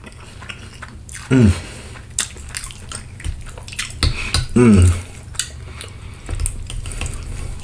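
Close-miked eating of spaghetti and chicken parmesan: wet chewing and slurping of noodles, with repeated clicks of a fork against the plate. Two short hums fall in pitch, about a second and a half in and again near five seconds; these are the loudest sounds.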